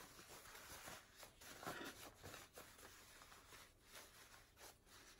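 Faint rustling and rubbing of fabric being pulled and worked by hand through a small opening as a lined scrub cap is turned right side out.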